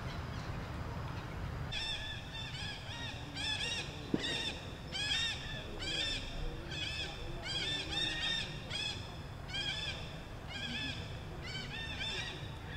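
Rapid, repeated high-pitched animal calls: a chattering series of short rising-and-falling notes, several a second, starting about two seconds in and running nearly to the end. A single sharp click about four seconds in.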